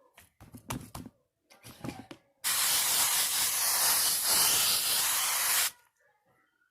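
Aerosol spray can spraying in one continuous hiss of about three seconds that cuts off sharply, after a few short knocks as the can is handled.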